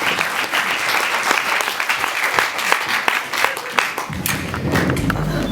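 Audience applauding, a dense patter of clapping; about four seconds in, a low steady rumble comes in under it.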